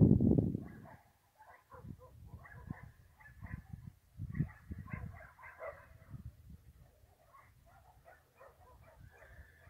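Distant dogs barking and yipping in many short, irregular calls. A loud low rumble in the first second dies away.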